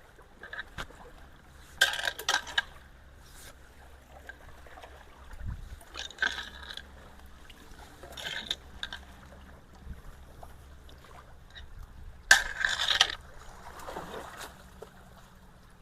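Intermittent sloshing and splashing of water in a ditch, four or five short bursts a few seconds apart, over a faint steady low hum.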